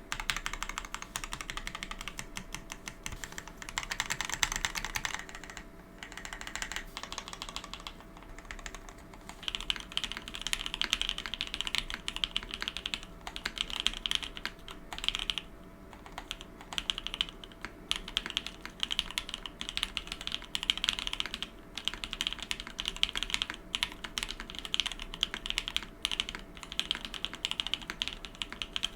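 Typing on a TGR910 v2 ME mechanical keyboard fitted with lubed Alpaca linear switches and GMK Striker keycaps: fast, continuous keystrokes with a few brief pauses.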